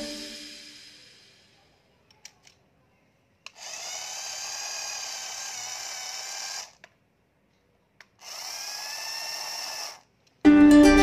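Small DC motor of a toy remote-control car whirring through its plastic gearing, run twice by the remote: once for about three seconds and again for about two, with a few faint clicks before the runs.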